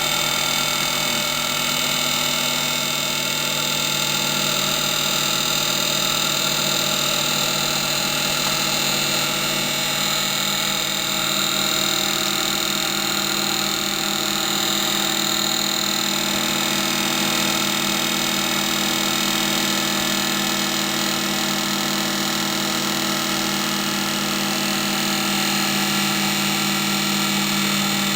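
Hapfo copy lathe running steadily while turning an oak table leg: an even machine hum with several steady tones and a hiss above them.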